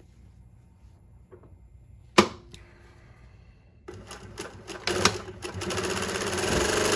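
New-Tech GC-8752-04 twin-needle industrial lockstitch sewing machine, direct-drive motor, stitching denim. A single sharp click about two seconds in, then the machine starts near four seconds and builds to a fast, steady rapid clatter of stitching.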